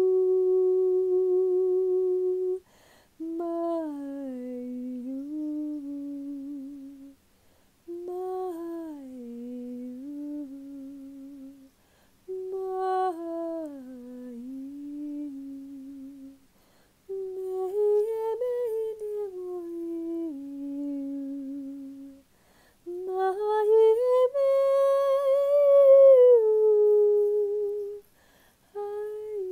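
A woman's wordless vocal toning, hummed long notes for sound healing. A steady held note, then five sustained phrases with short breaths between, each sliding down in pitch. The last phrase climbs to the highest and loudest note before gliding back down.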